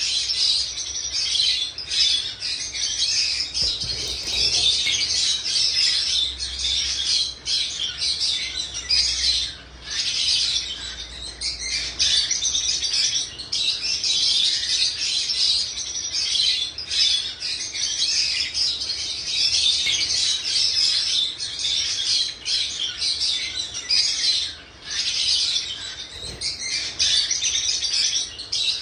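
Pet birds chirping in a dense, continuous chatter of high tweets, with short lulls about ten seconds in and again near the end.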